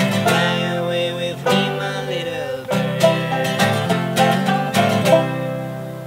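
Acoustic guitar and banjo playing a folk tune together, plucked banjo notes over strummed guitar chords. A little after five seconds in, a last chord is struck and left ringing, fading away.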